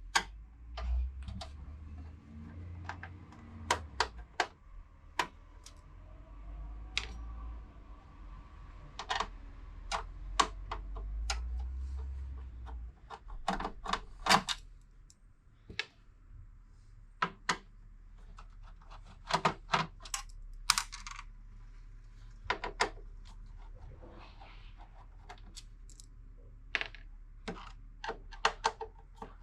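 Irregular sharp clicks and taps of small metal screws, a screwdriver and plastic and metal parts being handled while a desktop computer's motherboard is unscrewed and removed, with low handling bumps now and then.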